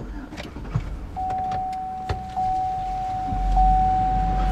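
Pickup truck engine running, heard from inside the cab, swelling at about three seconds as the truck pulls away, with a couple of sharp clicks. From about a second in, a steady dashboard warning chime sounds, broken by short gaps about once a second.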